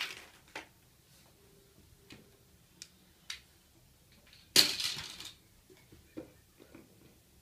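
Plastic toys knocking and clattering as they are handled in a plastic basket: scattered single knocks, and one louder clatter lasting under a second about four and a half seconds in.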